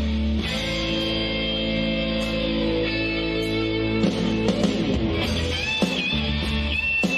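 Rock music with guitar, played loud over a live stage show's sound system. A held chord rings for the first few seconds, then gives way to a busier passage.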